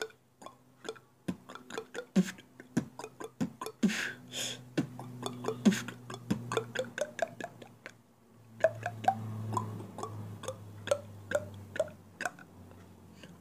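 Robotic-style vocal beatboxing meant to sound like an electric current: quick mouth clicks and ticks over a held, buzzing low hum. It breaks off briefly about eight seconds in, then starts again with a stronger hum.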